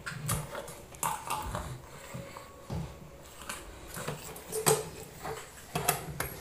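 Metal spoon stirring thick plum cake batter in a ceramic bowl: irregular scrapes and clicks of the spoon against the bowl.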